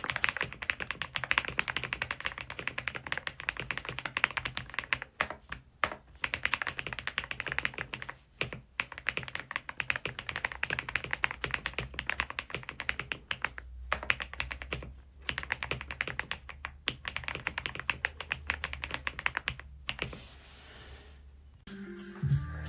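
Fast typing on an AULA F99 Pro gasket-mount mechanical keyboard: a dense run of keystroke clicks with a few short pauses, stopping a second or so before the end.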